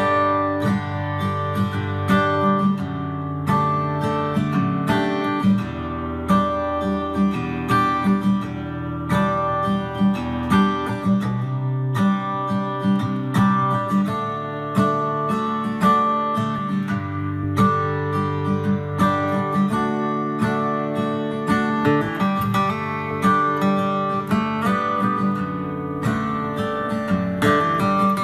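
Music led by strummed acoustic guitar with a steady beat, played back through a Samsung HW-Q60T soundbar.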